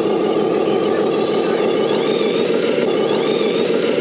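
Radio-controlled scale 6x6 dump truck running: a steady, loud, engine-like drone with a rapid pulsing and a thin high whine.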